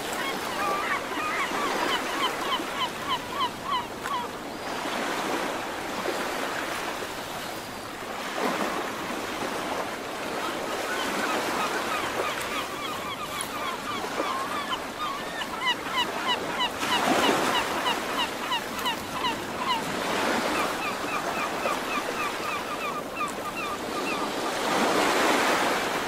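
Sea waves washing onto a shore, surging about every eight seconds, with a bird calling over them in quick runs of short repeated notes.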